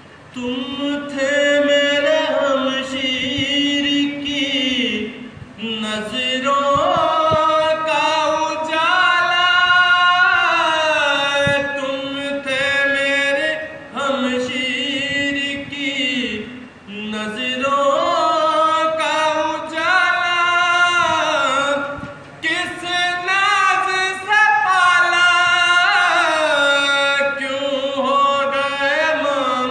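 A man reciting a nauha, a Shia lament, sung unaccompanied into a microphone: long drawn-out phrases that bend in pitch, with short breaks for breath about every few seconds.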